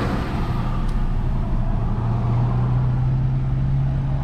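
Car engine running with a steady low hum, its pitch rising slightly about a second and a half in.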